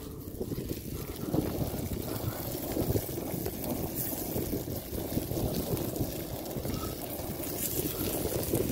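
Bacon-wrapped steak cooking on a hot stone: a steady sizzle with scattered crackles.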